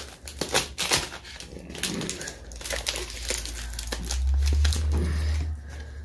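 Crinkling and crackling of shipping tape and mailer packaging being pulled and worked open by hand, a package wrapped in a lot of tape. A low rumble from handling rises about four seconds in and lasts over a second.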